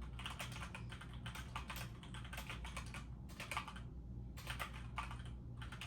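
Typing on a computer keyboard: quick runs of key clicks with short pauses between them, over a faint steady low hum.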